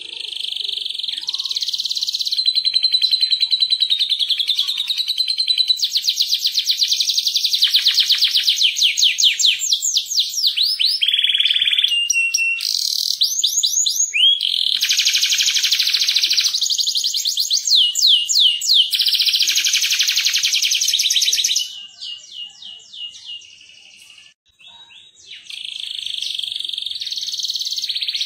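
Domestic canary in full song: long runs of fast trills and rolls mixed with sliding whistled notes. The song breaks off for a few seconds about three-quarters of the way through, then starts again.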